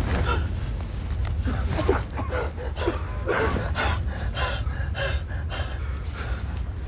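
A wounded man gasping and groaning in pain, in short ragged breaths, over a low steady rumble.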